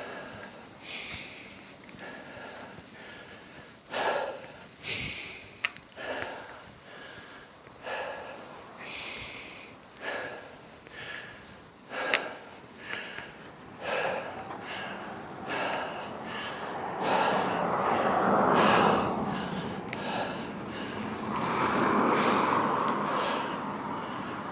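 A cyclist breathing hard while climbing a hill, a loud breath every second or two. Twice in the last third, a louder rushing swell rises and fades over it.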